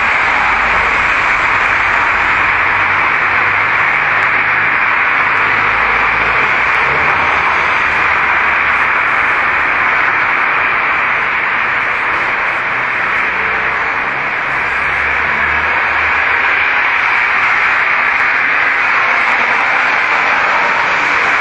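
Steady loud hiss of a noisy audio recording, with a faint low rumble underneath at times.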